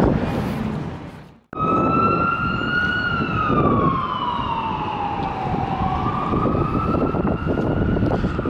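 Emergency vehicle siren wailing in a slow rise and fall, sliding down over a few seconds and back up again, over city traffic noise. It starts abruptly about a second and a half in, after outdoor noise fades into a moment of silence.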